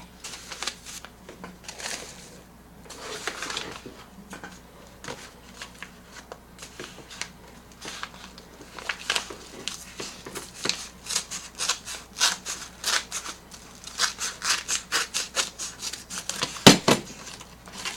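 Cards and packaging being handled: irregular rustling and light scraping that turns into a quick run of small rustles and clicks in the second half, with one sharp knock near the end.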